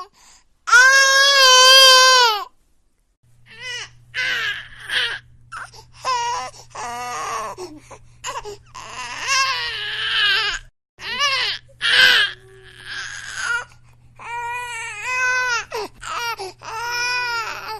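Baby crying: one long, loud wail, then a string of shorter cries and sobs.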